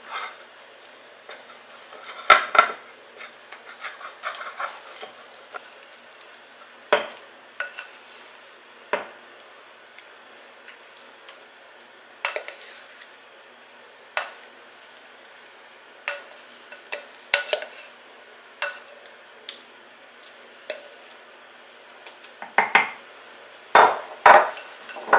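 Wooden spoon and spatula tapping and scraping against a glass mixing bowl and a ceramic quiche dish as a thick egg-and-vegetable mixture is spooned in and spread: irregular clinks and scrapes with quiet gaps between, loudest near the end.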